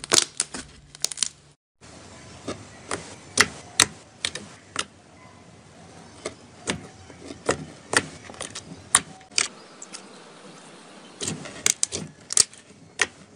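Slime being squeezed and poked by hand, giving irregular sticky clicks and small pops.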